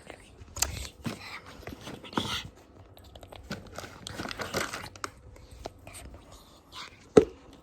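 Crinkling and rustling noises close to the microphone, in short irregular bursts, with one sharp knock about seven seconds in.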